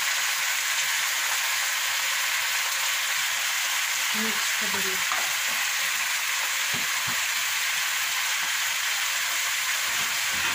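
Leafy greens sizzling steadily in hot oil in a wok as they are stir-fried and tossed, with a couple of light knocks about seven seconds in.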